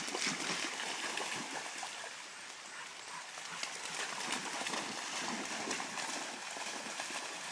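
River water running, with irregular splashing from dogs moving about in it.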